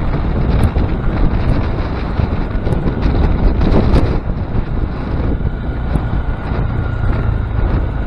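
Wind buffeting an action camera's microphone on a moving Honda Grom motorcycle, over a steady low engine and road rumble.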